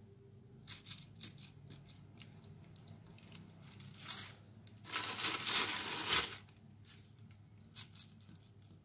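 Knife cutting a slab of homemade soap that is still slightly soft, on a plastic sheet: scattered small scrapes and crinkles, and one louder scraping, crinkling noise lasting about a second just past the middle.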